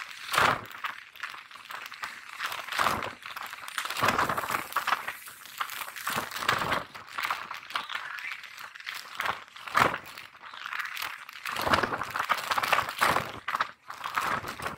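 Wind rushing and buffeting against the microphone at the open window of a moving train, in irregular crackling gusts.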